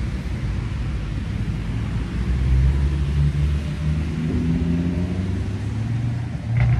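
Busy road traffic on a roundabout: cars going past with a low engine rumble and tyre noise, swelling about two and a half seconds in and again near the end.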